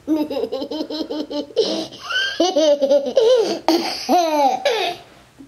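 An overexcited 18-month-old toddler laughing and squealing: a quick run of short ha-ha laughs over the first second and a half, then high squeals that slide up and down, tailing off near the end.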